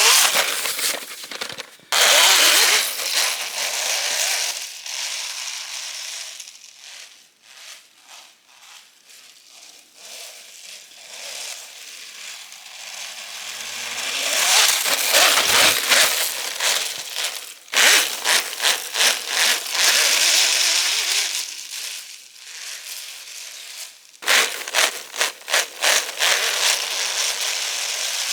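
A 3D-printed Alpha-6 RC snowmobile driving over slushy spring snow: a crackly hiss of the track churning slush that swells and fades as the sled speeds up and slows. Twice in the second half come runs of quick rattling clicks as it bounces.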